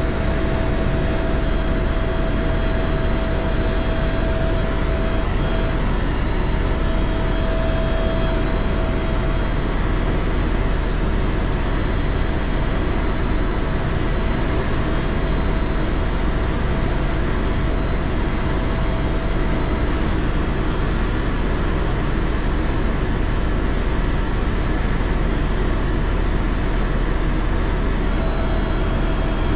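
Tour helicopter in flight: a steady engine and rotor drone with a low rumble and a thin whine that fades out about two-thirds of the way in and comes back near the end.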